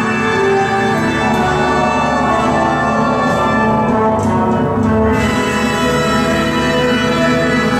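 Orchestral music with brass, playing steadily as backing for a stage dance.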